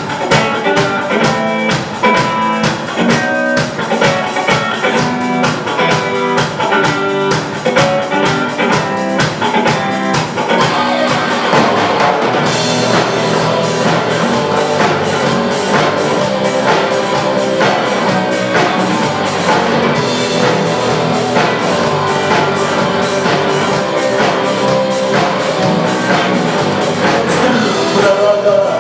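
Instrumental intro of a Russian rock song: a drum kit keeping a steady beat under guitar lines, the arrangement filling out and getting denser about twelve seconds in.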